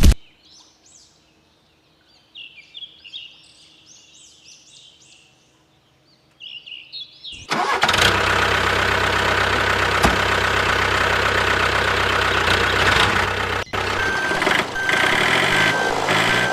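Faint bird chirps, then about seven seconds in an engine starts and runs steadily at idle, with a repeated high beeping joining near the end.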